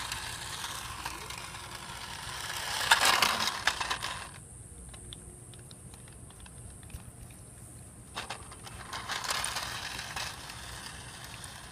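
Toy remote-control car driving, its small electric motor and plastic gears whirring and clattering in spurts. The loudest spurt comes about three seconds in, then it goes quieter with scattered clicks before picking up again.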